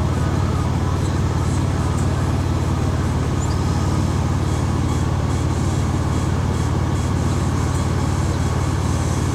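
Steady low engine rumble of a running vehicle.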